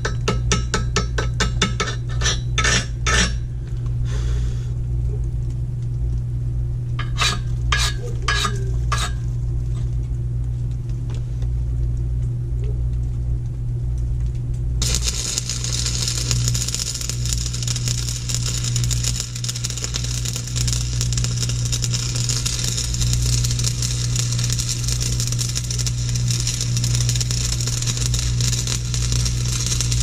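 AC buzz-box stick welder humming steadily, with a series of sharp clicks and taps over the first ten seconds. About halfway in, the welding arc catches and crackles and sizzles steadily as a bead is run.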